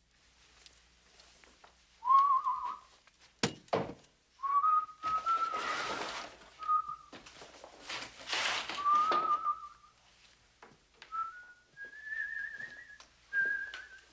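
A man whistling a slow, wavering tune in short phrases. There is a sharp knock about three and a half seconds in, and two longer rushing, clattering noises between the phrases.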